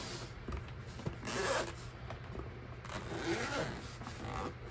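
Zipper on a hard-shell storage case being pulled open around its edge, a rasping sound in several strokes.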